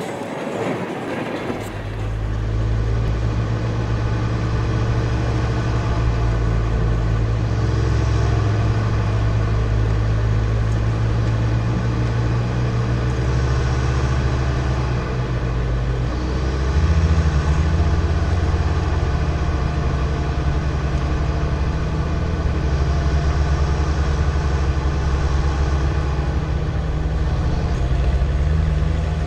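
Engine of an off-road vehicle crawling along a rough forest track, a steady low drone heard from inside the vehicle, with its note shifting about halfway through.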